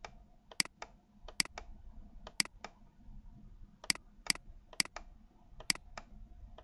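Computer mouse button clicking: about a dozen sharp clicks, several in quick press-and-release pairs, as strokes are drawn with an on-screen pen tool.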